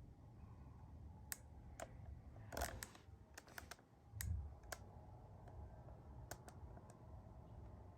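Scattered light clicks and taps, about a dozen at irregular intervals, with a louder cluster about two and a half seconds in and a dull thump about four seconds in, over a faint low hum.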